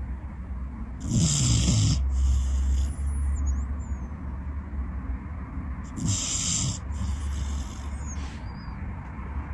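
Long-haired corgi snoring in its sleep: two snoring breaths about five seconds apart, each a snore followed by a breathy hiss, over a steady low hum.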